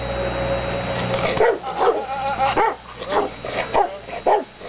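Rottweiler barking in a run of sharp, deep barks, roughly one every half-second to second, starting about a second in: a protection-trained dog barking at the man it is being worked against.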